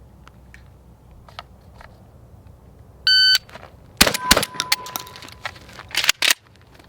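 A single loud electronic beep about three seconds in, followed about a second later by a series of sharp cracks in two clusters.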